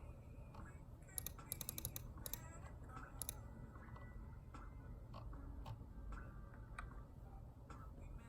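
Keychron K2 mechanical keyboard with brown switches being typed on: a quick flurry of keystrokes a little over a second in, then scattered single key presses.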